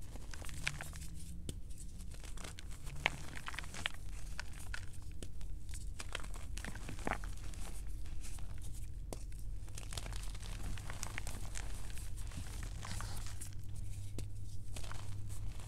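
Gym chalk chunks being squeezed and crumbled between the fingers, giving a steady run of soft crunches and small dry crackles as the chalk breaks up into powder.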